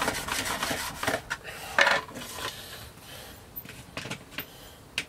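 An 18 mm boilie rolling table being worked by hand: the grooved top slides over the base with a scraping rub as the bait paste is rolled into round balls. A louder scrape comes about two seconds in, and several sharp knocks follow as the table is handled and the baits come out.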